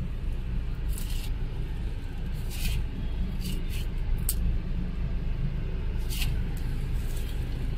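Cabin noise of a BAIC X55 SUV under way in traffic: a steady low rumble of road and engine, with a few brief high hisses scattered through it.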